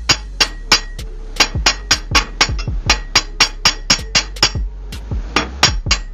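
Hammer tapping a coin ring down on a tapered steel mandrel: quick, ringing metal-on-metal strikes, about three or four a second, with a short pause near the end.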